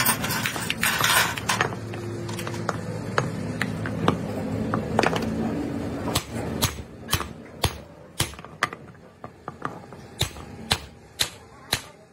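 Steel parts of a truck driveshaft's universal joint and yoke scraping and clinking as they are fitted together by hand. A loud scraping at the start, then scattered knocks, and in the second half a run of sharp metal clinks about two a second.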